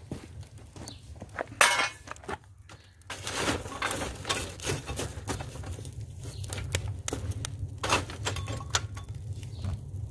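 A steel poker stirring burning coals inside a metal firebox: a run of clinks, scrapes and knocks of metal on coal and sheet steel, with one sharp knock a little under two seconds in. A steady low rumble runs underneath.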